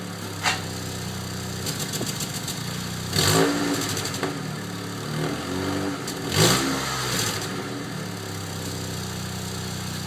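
Exhaust of a 1987 Honda Civic's 12-valve D13 four-cylinder through its stock muffler: idling, revved up and let fall back twice, about three and six and a half seconds in, with a smaller blip between.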